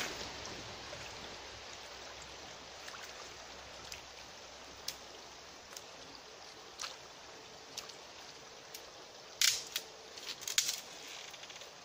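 Steady rush of a small forest river, broken by a few sharp cracks and snaps as a wet overhanging branch is gripped, pulled down and shaken. A cluster of louder cracks comes near the end.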